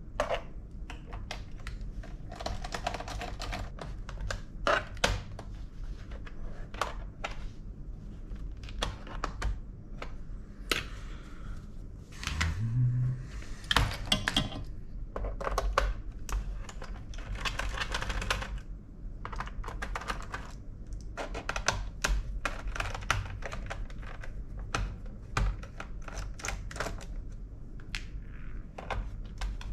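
Quick irregular clicks, taps and scrapes of small tools and metal and plastic laptop parts being handled during disassembly, with a brief low rising whirr about twelve seconds in.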